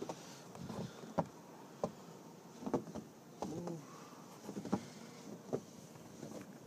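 Footsteps crunching in fresh, deep snow, one step roughly every half second to second, with a brief squeak about halfway through.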